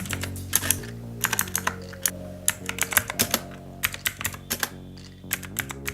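Typing on a Redgear Invader MK881 mechanical keyboard with clicky Kailh Blue switches: a quick, irregular run of sharp key clicks.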